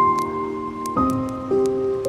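Soft, slow solo piano: a held chord ringing, with new notes struck about a second in and again shortly after. Faint scattered crackles sound underneath.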